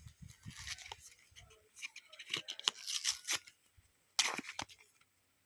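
A 4x4 Rubik's cube box being opened by hand: irregular rustling, tearing and clicks of packaging. They are busiest in the middle, with a last short flurry near the end.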